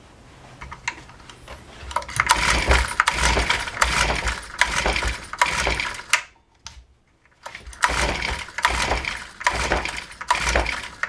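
Honda UMK-422 string trimmer's small four-stroke engine being pull-started over and over, the recoil starter rope yanked in quick strokes and the engine cranking without firing. Two runs of pulls with a short pause between them.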